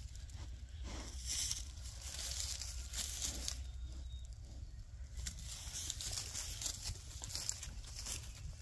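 A horse grazing: grass torn off and crunched between its teeth in short, irregular crackles, over a steady low rumble.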